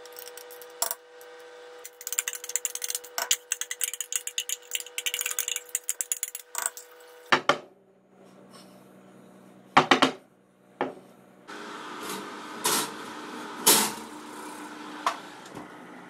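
A metal spoon clinking and scraping against a spatula and a glass baking dish of cheesecake batter in a rapid run of small clicks, then a few separate louder knocks as the dish is handled. A steady hum runs underneath.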